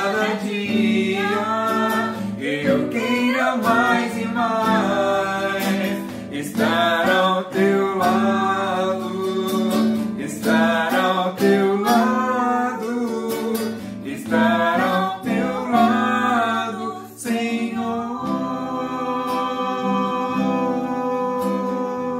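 A woman and a man singing a Portuguese-language worship song in duet, accompanied by a nylon-string classical guitar. For the last few seconds the voices hold one long note over the guitar.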